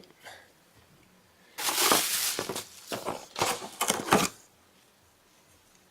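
Packaging and box contents being handled and rummaged through, crinkling and rustling in several irregular bursts over about three seconds.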